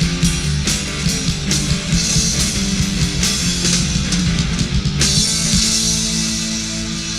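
Rock band playing, with a drum kit beating out a fast rhythm under electric guitar. About five seconds in the drumming gives way to one crash, and a held guitar chord rings on under the cymbal wash.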